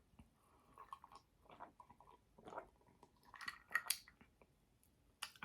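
A person chewing a mouthful of food close to the microphone: soft, irregular wet mouth sounds and bites, a little busier and crisper a few seconds in.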